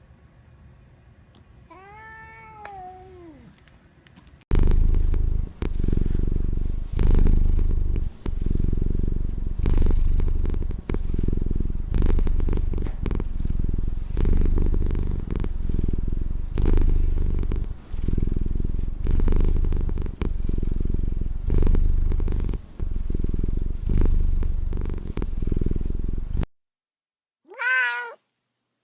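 Domestic cat giving one short meow, then purring loudly in a steady rhythm of swells about every one and a half seconds, like breaths in and out, ending with another short meow near the end.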